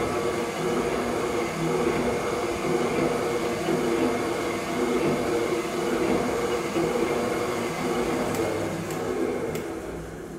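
Kasto PSB 4 power hacksaw running, its motor and drive giving a steady mechanical hum. The sound begins to fade about nine seconds in, with a few light clicks near the end.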